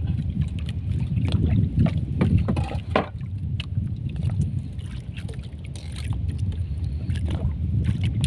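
Steady low rumble of wind and water around a small open fishing boat, with scattered knocks and scrapes as a longline is hauled in by hand over the gunwale.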